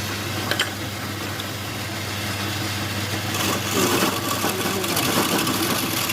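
Wood lathe motor running with a steady hum. From about three and a half seconds in, a rougher scraping hiss is added on top.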